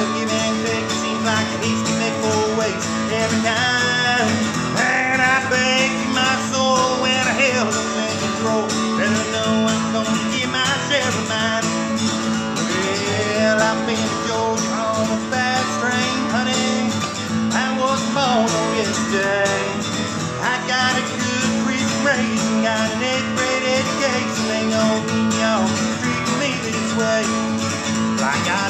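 Taylor acoustic guitar strummed and picked in a country-style instrumental passage, played at a steady level.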